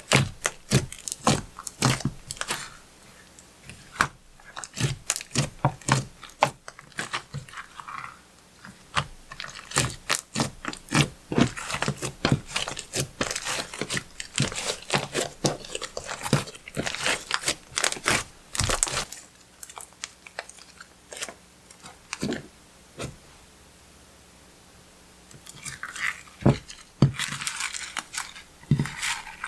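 Clear slime being squeezed and kneaded by hand, giving a dense run of sticky clicks and small pops. The clicking thins out for a few seconds past the middle, then picks up again near the end.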